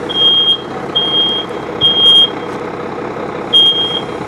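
Smoke alarm sounding its temporal-three evacuation pattern: three short, high, piercing beeps, a pause of about a second, then the next set beginning near the end. It is set off by the smoke of a burning room. A steady noisy background runs underneath.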